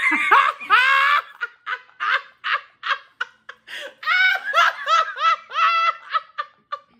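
A woman laughing hard: a long, loud, high-pitched burst, then a run of quick short 'ha' pulses that eases off near the middle before swelling into a second loud run.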